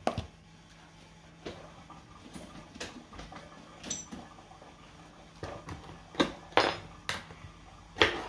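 Metal food cans being handled and set down on a kitchen counter: a scattered series of light clicks and knocks, sharper and louder in the last couple of seconds.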